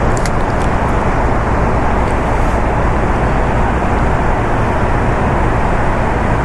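Fast-flowing river water rushing steadily, the current swollen and quickened by recent heavy rain, with a deep rumble underneath.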